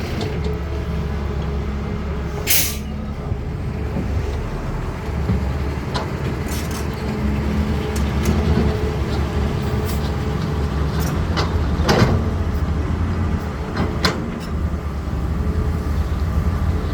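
Cat 320D hydraulic excavator's diesel engine running steadily as it works, with a short hiss a few seconds in and several sharp clanks and knocks, the loudest about two-thirds of the way through.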